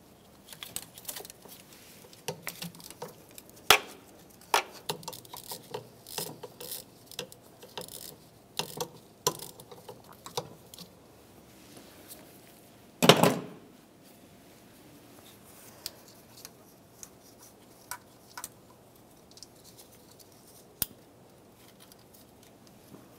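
Metal hand tools and bolts clicking and clinking irregularly as the 10 mm fuel-rail mounting bolts are worked out, with one louder clunk a little past halfway.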